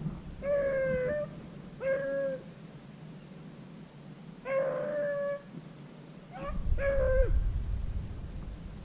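Beagles baying on a rabbit's trail: about five drawn-out, slightly falling howls, spaced a second or two apart. A low rumble joins about two-thirds of the way in.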